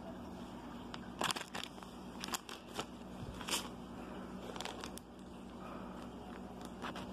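Clear plastic packaging bag crinkling and crackling as it is handled, in irregular bursts of sharp crackles.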